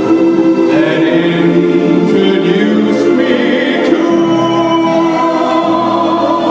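A man singing a slow ballad through a microphone, holding long notes with vibrato over a backing track of sustained chords.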